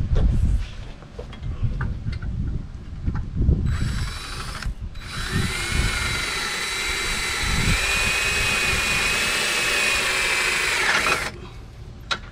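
Cordless drill boring through a truck's brake dust shield for a rivet: a short burst, a brief stop, then about six seconds of steady whine that rises slightly in pitch before cutting off. A few light clicks and knocks come first.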